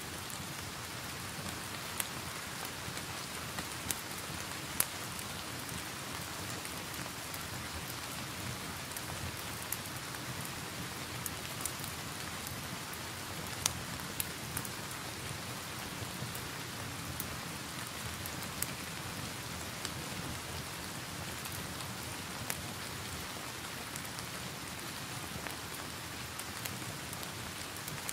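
Steady rain falling, mixed with the crackle of a fireplace fire: a sharp pop stands out every few seconds, loudest about 14 seconds in.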